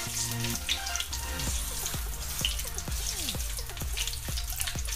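Cumin seeds, bay leaves and black cardamom sizzling and crackling in hot oil in a kadai, stirred with a wooden spatula.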